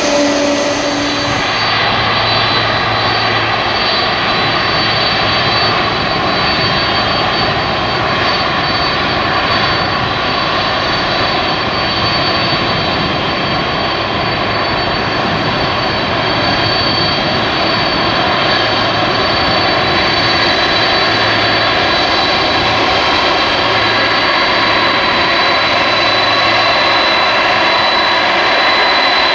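Boeing 747 freighter's four jet engines running at taxi power as it rolls off the runway toward the listener: a steady rush with a high whine, growing slightly louder near the end.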